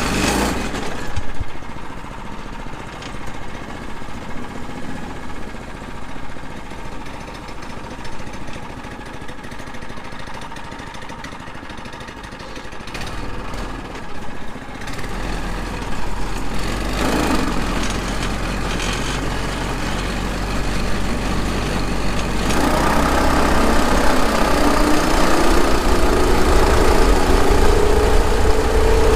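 Small single-cylinder go-kart engine, a Tillotson 212, idling, then about two-thirds of the way through it gets louder and its pitch climbs steadily as the kart accelerates.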